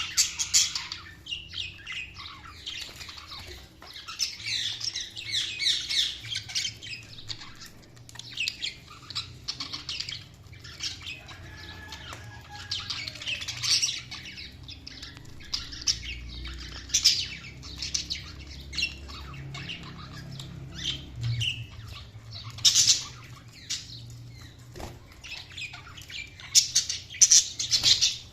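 Budgerigars chirping and warbling in irregular bursts, with sharper squawks in between.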